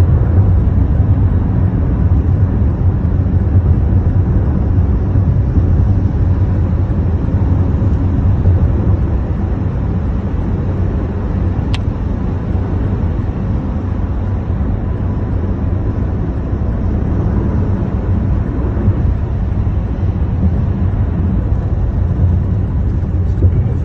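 A car being driven, heard from inside the cabin: a steady low rumble of tyre and engine noise. One short tick about twelve seconds in.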